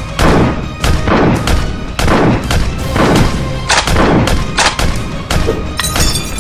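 Background music with a run of sharp gunshot-like bangs, roughly two a second, as toy foam-dart blasters are fired.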